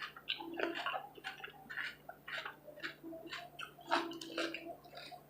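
Close-miked mouth sounds of someone eating buffalo chicken wings: irregular wet chewing and smacking clicks, several a second.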